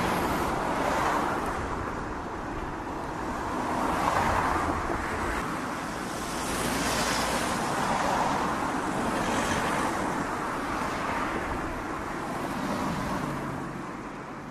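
Sound-effect engine rush of a flying sci-fi gunship: a steady, noisy hum that swells and fades every few seconds.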